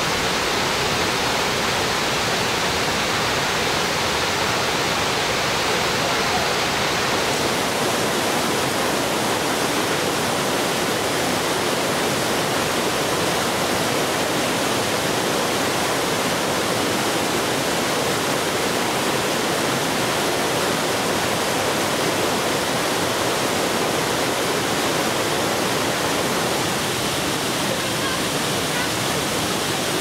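Fast water rushing and splashing over boulders in a rocky stream's white-water rapids: a steady, unbroken rush. About seven seconds in the sound turns slightly brighter and hissier.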